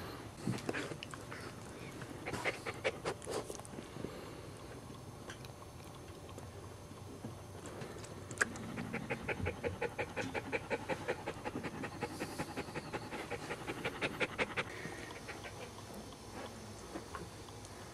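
Cairn Terrier mother panting rapidly and evenly, the heavy panting of a dog in labor while whelping, from about eight seconds in until near the end. Before that come a few short bursts of licking as she cleans her newborn puppy.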